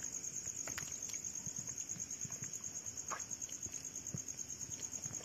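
Insects chirping steadily in a high-pitched, rapidly pulsing trill, with a few faint scattered clicks and soft thuds.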